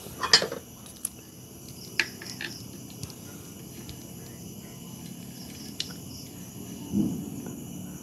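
Scattered short metal clicks and clinks of a wrench being fitted to the clutch centre nut of a Lifan 160cc motorcycle engine, with one louder knock about a quarter second in. Steady cricket chirping runs underneath.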